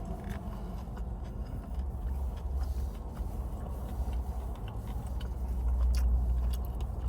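Low steady rumble of a car idling, heard inside the cabin, growing a little stronger about two seconds in, with scattered faint clicks.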